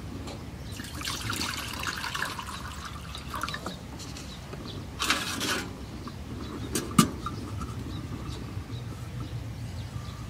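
Liquid being poured in short spells, over a steady low background rumble, with one sharp knock about seven seconds in.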